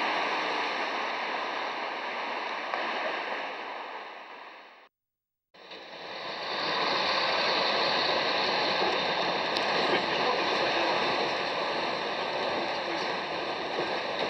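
Street traffic noise that fades out, a half-second gap, then the steady running and road noise of the MAXI-TRAIN bus-and-trailer combination heard from inside its passenger cabin as it drives.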